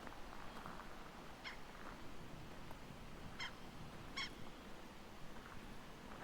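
Three short, sharp animal calls, about a second and a half, three and a half and four seconds in, over a steady outdoor background hiss.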